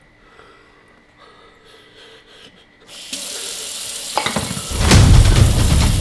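Water running from a tap, starting suddenly about three seconds in and growing much louder and fuller a little under two seconds later.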